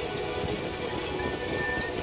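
Music playing, with held tones over a low rumble; a single high note is held for most of a second near the end.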